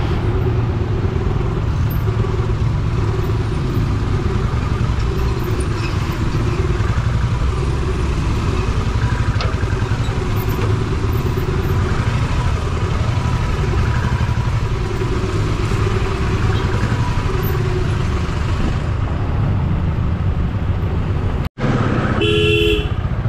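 Motorcycle engine running at low speed in slow, congested street traffic, a steady low thudding throughout. Near the end the sound cuts out for an instant, then a short vehicle horn sounds.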